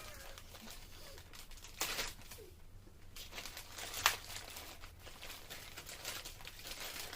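A small packaging bag being handled and opened, rustling softly, with a brief louder rustle about two seconds in and a sharp crackle about four seconds in.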